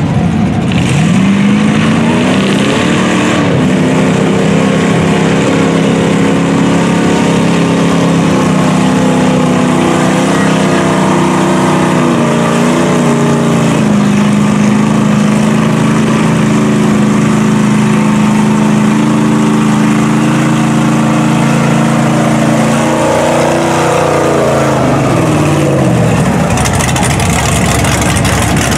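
Naturally aspirated LS V8 of a Chevy mud truck (iron-block 6.0 stroked to 402) revving up about a second in and holding high revs steadily while the truck drives through mud, then dropping back off about 24 seconds in.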